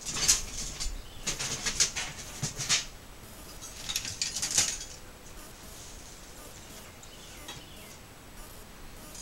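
Rummaging through a pile of scrap metal: pieces scraping, rattling and clinking as they are shifted and pulled out, in two spells during the first five seconds, then only faint handling.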